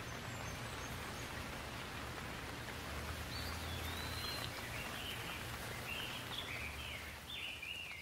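Steady rain falling, an even hiss. From a few seconds in, a bird calls in a series of short high chirps.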